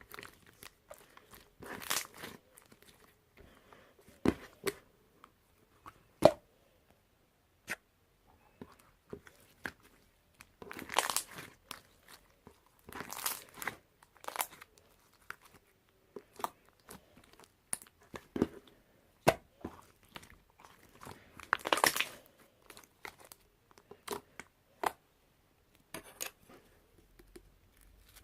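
Hands pressing and stretching marbled slime: irregular sticky clicks and crackly squishes, with a few longer bursts of crackling.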